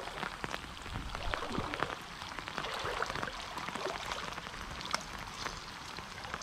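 Water dripping and trickling from a wet cast net as it is hauled up out of shallow water, many small patters and splashes.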